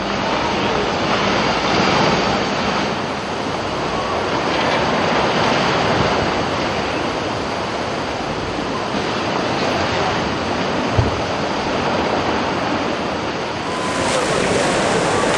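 Torrent of brown floodwater rushing through a swollen river in a steady, loud rush, with a single short thump about eleven seconds in.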